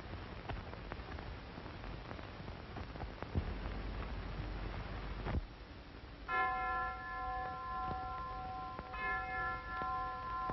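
A bell strikes twice, about two and a half seconds apart, each stroke ringing on with several clear tones. Before the first stroke there is only the hiss and scattered crackle of an old film soundtrack.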